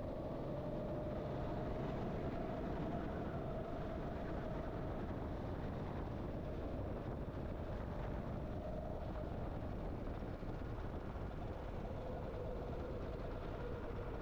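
Sodi rental kart's engine running at speed under the onboard camera, with road and wind noise. The engine note rises and falls with the corners and sits lower near the end.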